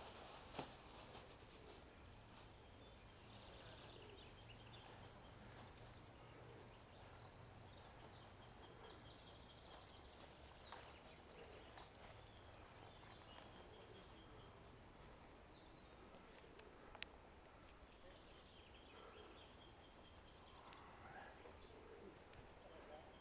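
Near silence: faint background ambience with small birds chirping faintly now and then, and a couple of soft ticks.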